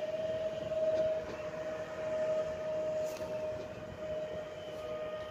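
Electric multiple unit running past and moving away, a steady high whine over a low rumble of the train.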